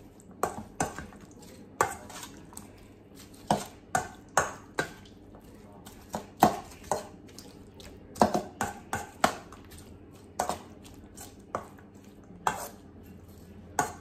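Metal spoon clinking against a stainless steel mixing bowl while sliced roast beef and red onion are tossed together: irregular sharp knocks, one to three a second, some with a short metallic ring.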